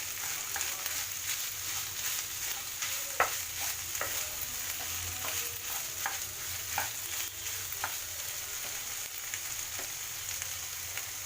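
Potato, paneer and capsicum stuffing sizzling in hot oil in a pan while it is stirred and mixed, with the stirring utensil clicking and scraping against the pan now and then, most sharply about three seconds in.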